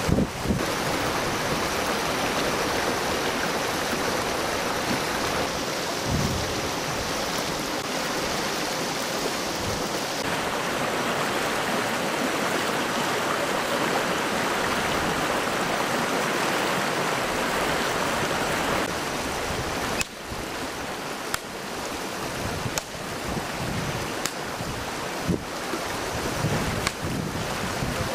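Shallow river rushing over rocks: a steady, full noise of running water, with a few short sharp clicks in the later part.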